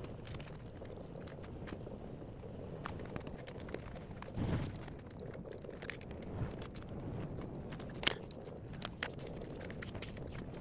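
Scattered knocks and clicks of standing-desk parts being handled and set down, with a dull thump about four and a half seconds in and a sharp click about eight seconds in, over a steady low background noise.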